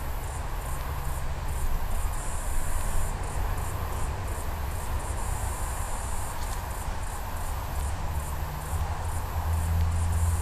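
High-pitched insect trilling that breaks off and starts again every second or so, over a steady low rumble that grows louder near the end.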